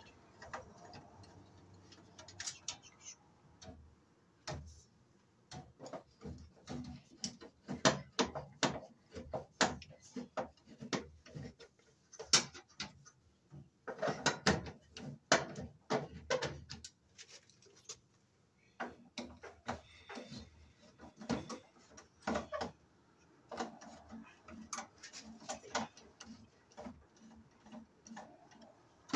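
Screwdriver working out the cover screws of a breaker panel, giving runs of quick sharp clicks in several spells with short pauses between.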